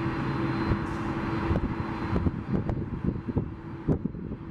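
Boeing 767 freighter's twin turbofan engines at low taxi thrust: a steady jet engine noise with a faint held hum, and scattered light clicks.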